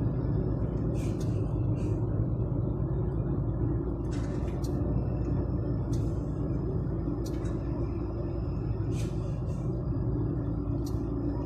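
DAF truck's diesel engine running steadily under way, a low drone heard from inside the cab, with a few scattered short clicks or rattles.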